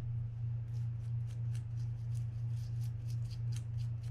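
Quick, scratchy wiping strokes, a few each second, as a part of a Shimano TLD25 reel is cleaned off by hand. A steady low hum runs underneath.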